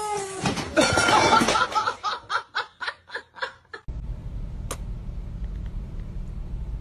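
A person laughing hard, trailing off into a run of short laughs that fade away. From about four seconds in a steady low rumble takes over, with one sharp click.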